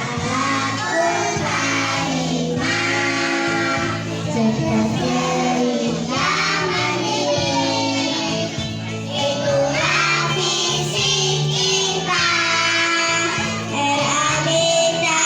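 Children singing a song over instrumental backing music.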